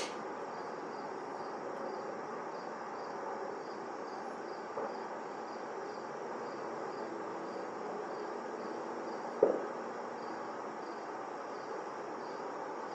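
Crickets chirping in an even rhythm of about two chirps a second over a steady outdoor background hum, with a single sharp knock about two-thirds of the way through.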